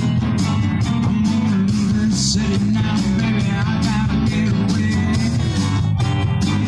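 Rock band playing an instrumental passage: guitar lead with bent notes over bass and steady drums.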